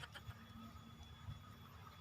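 Near silence: faint steady background hum.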